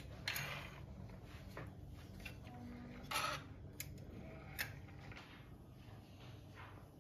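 A few faint clinks and short rustles of steel spoons and forks handled in a wooden cutlery holder, the loudest about three seconds in, over a low steady room hum.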